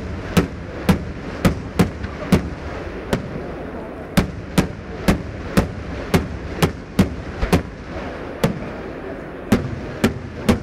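Daytime aerial fireworks: a rapid run of sharp bangs from shells bursting overhead, roughly two a second, with a brief lull near the middle and another a couple of seconds before the end, over a steady low rumble.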